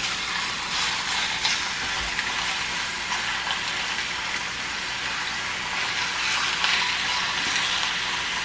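Marinated chicken chunks sizzling in oil in a hot cast-iron skillet, a steady hiss, as a fork moves the pieces around the pan.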